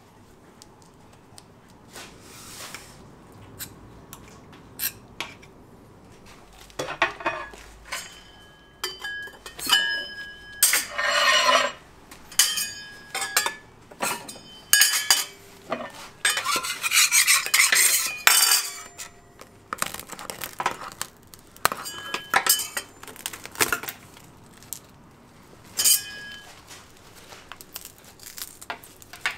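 Metal candy-making tools clinking, knocking and scraping on a work table as hard candy is worked by hand: irregular sharp clinks with a short metallic ring, sparse at first, then busier, with a dense clattering stretch in the middle.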